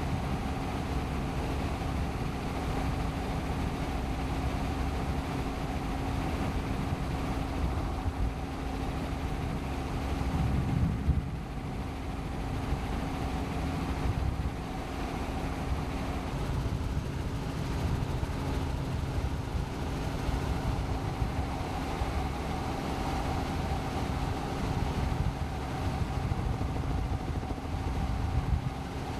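Helicopter in flight, heard from on board: a steady engine and rotor drone with a constant tone through it, over a rough, fluttering low rumble.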